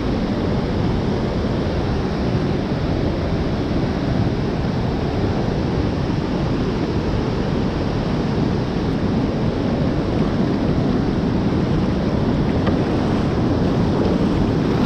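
Whitewater rapid pouring steadily over a bedrock ledge, an unbroken rush of water.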